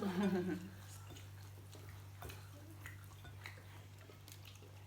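Quiet eating at a table: soft chewing and occasional small clicks, over a steady low hum.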